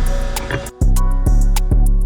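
Background music with a steady beat: a pitched instrumental track with sharp regular drum hits and a brief drop about three-quarters of a second in.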